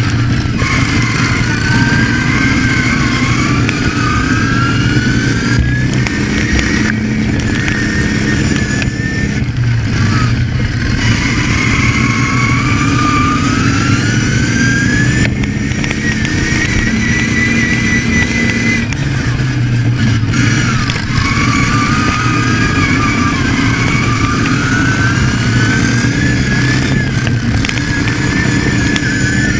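Racing ride-on lawn mower engine running hard at full throttle, its pitch climbing over a few seconds and dropping back, about six times.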